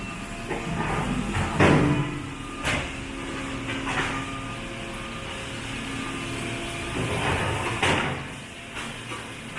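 Automated pallet sort and repair line running: a steady machine hum with a few hard knocks and clunks of wooden pallets being handled, the loudest about one and a half seconds in and again near the end.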